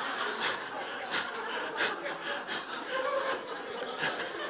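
Church congregation laughing and chuckling together at a joke, many voices at once.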